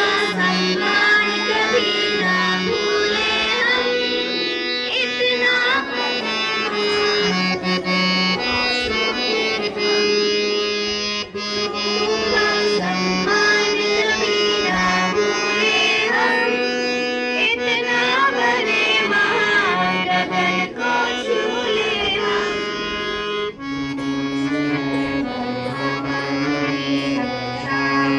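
Music from a band playing a song: a melody line over long held chord notes, with the chord changing lower about twenty-three seconds in.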